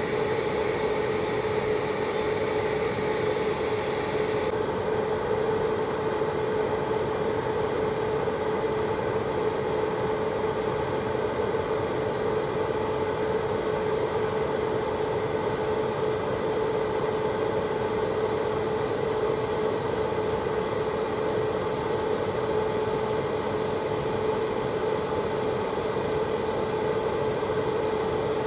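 Manicure dust-extractor fan running steadily with a constant motor hum and airflow hiss. For the first four seconds or so an electric nail drill also whines over it, then stops.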